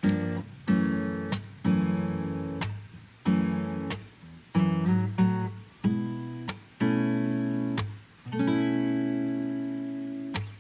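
Background music on acoustic guitar: a slow run of plucked and strummed chords, each struck sharply and left to ring and fade.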